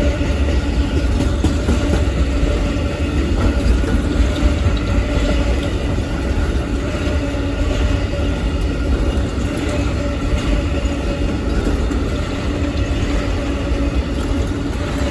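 Amtrak Auto Train's long string of passenger and auto-carrier cars rolling past on the rails: a steady heavy rumble of wheels on track with a faint steady hum above it.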